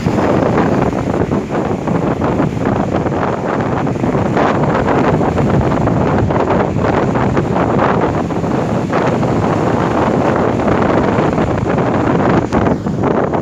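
Strong storm wind gusting hard against the microphone, over the noise of rough sea waves breaking on the shore.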